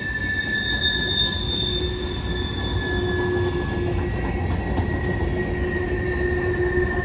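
Freight cars of a long train rolling past with wheel squeal over a low rumble. Several steady high squealing tones run together, and one fades out and another comes in about halfway through.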